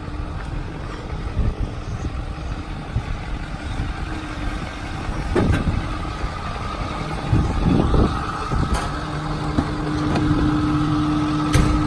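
Ford F450 bucket truck idling, heard up close with handling and footstep noises. A click comes about three-quarters of the way in as the cab door opens, and a steady hum from the running cab comes in after it.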